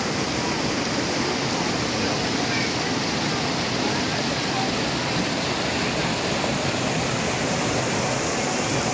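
A waterfall's water rushing steadily, an even, unbroken wash of noise.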